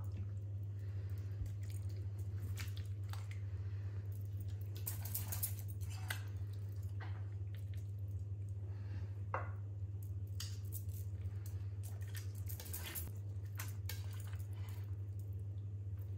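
A knife and fork carving a roast chicken in a ceramic roasting dish: soft squelches of the juicy meat and scattered scrapes and clicks of metal on the dish. A steady low hum runs underneath.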